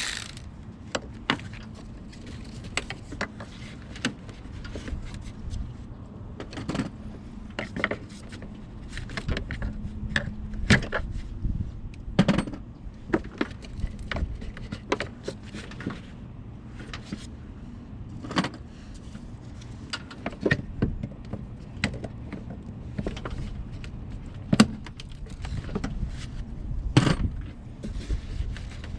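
Irregular clicks, taps and knocks of hand tools and loosened air-intake parts being handled in a car's engine bay, over a steady low background rumble; a few sharper knocks stand out now and then.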